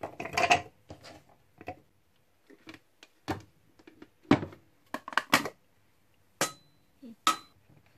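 Shallot and garlic pieces dropping into a plastic mini chopper bowl, then a series of separate plastic knocks and clicks as the chopper's lid and motor unit are fitted and the bowl is handled, the loudest knock about four seconds in.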